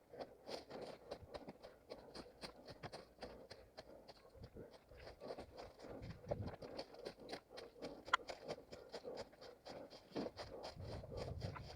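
A runner's footsteps on forest ground, a steady rhythm of about three strides a second with scraping and rustling underfoot, heard from a head-mounted camera. A sharp click about eight seconds in.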